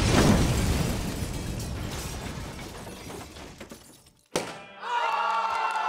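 A loud crash that dies away over about four seconds. About four seconds in there is a sharp click, then music with held notes begins.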